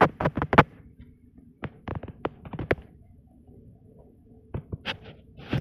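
Scattered sharp clicks and taps in a small room: several in quick succession at the start, sparser ones in the middle and a few more near the end, over a faint low hum.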